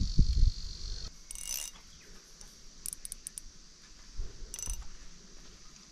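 Short bursts of high metallic clicking, three times about a second and a half apart, from a Shimano Vanquish spinning reel being handled as a lure is worked. Dull handling thumps come at the start, and a steady insect trill stops about a second in.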